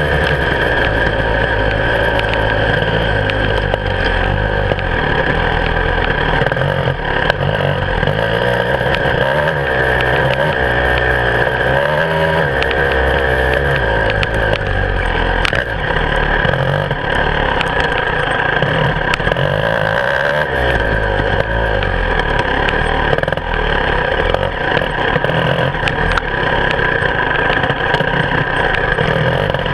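Beta 300RR two-stroke enduro motorcycle engine running close up, its pitch rising and falling again and again as the throttle is opened and closed while the bike is ridden.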